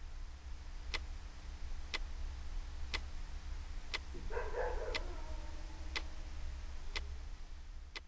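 A clock ticking steadily, once a second, over a low steady hum, with a short murmured voice-like sound about four seconds in.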